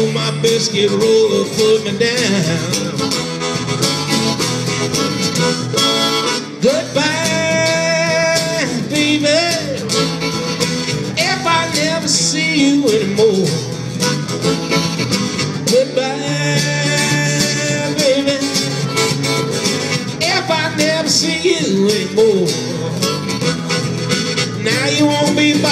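Live band playing a blues-rock song, with guitar and singing.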